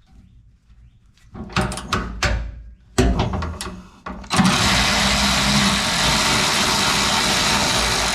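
A few sharp knocks of a socket being fitted onto a bolt. Then, about four seconds in, an electric ratchet starts running steadily, spinning a skid-plate bolt out.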